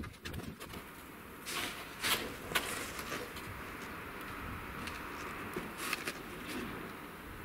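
A snow shovel cutting into packed roof snow, with a few short crunching scrapes about one and a half to two and a half seconds in and another near the end.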